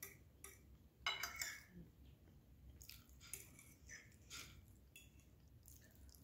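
Metal fork clinking and scraping against a ceramic dinner plate: a string of short, light clicks and scrapes, the loudest just after a second in.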